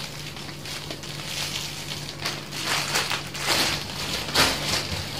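Crinkling, rustling handling noise close to the microphone, in irregular bursts that grow busier about two seconds in, over a faint steady low hum.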